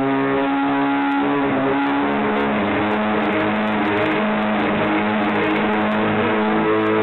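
Electric violin played with the bow, long held notes over a dense, sustained drone, the main note stepping down about two seconds in. Phone recording with a muffled top.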